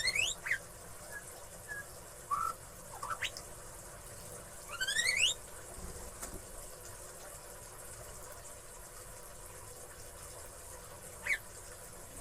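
Oriental magpie-robin (kacer) giving sharp, fast upward-sweeping whistled calls: one near the start, others about three and five seconds in, and a short single note near the end, with silent gaps between.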